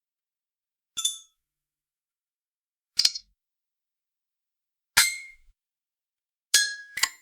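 Eyeglasses temple arms snapping open and shut: five sharp clicks, each with a brief high ring. The first three come about two seconds apart and the last two in quick succession near the end.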